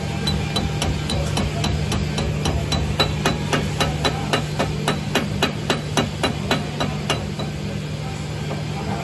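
Welder's chipping hammer striking a steel weld again and again, chipping off slag: quick, even, ringing metallic taps, about three or four a second, that stop about two seconds before the end.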